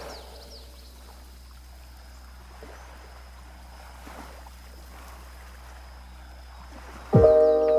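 Faint, steady wash of sea water with small trickling sounds. About seven seconds in, loud bell-like music tones come back in.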